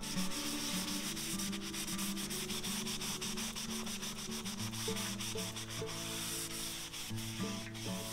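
A crumpled cloth rubbed over a cardstock book cover in quick back-and-forth strokes, smoothing the cover down; soft background music plays under it.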